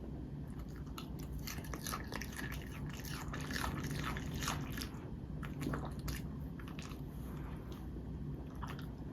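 Poodle biting and chewing raw vegetables, with crisp crunches coming thick and fast in the first half, then more sparsely. A steady low hum lies underneath.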